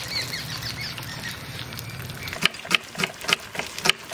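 A kitchen knife cuts through shallots onto a wooden chopping board, giving sharp, evenly spaced knocks about three times a second, starting a little past halfway. Before that there is a steady hiss with faint high chirps.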